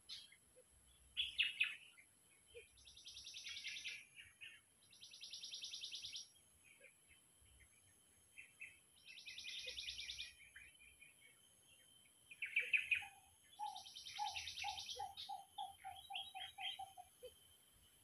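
Birds calling: about four bouts of buzzy, rapid chattering, each lasting about a second, with short chips in between. Near the end comes a run of about ten quick, evenly spaced lower notes.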